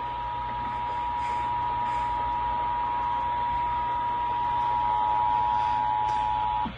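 Emergency Alert System attention signal: two steady tones sounding together, carried over AM radio with a hiss of static, cutting off suddenly near the end.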